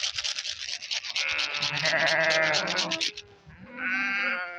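Sheep bleating: one long wavering bleat, then a shorter second bleat near the end. Under the first bleat runs a fast scratchy clicking, about nine clicks a second, which stops about three seconds in.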